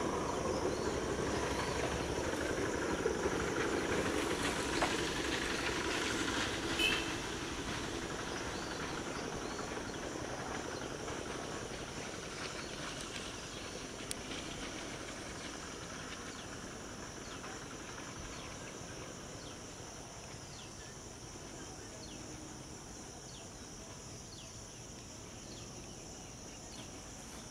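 Electric multiple-unit local train running on the line, a steady rail noise that fades gradually.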